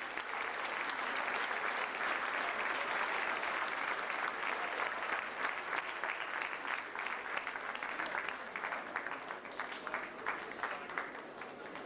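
Crowd applauding: a dense burst of clapping that thins out to scattered individual claps over the last few seconds.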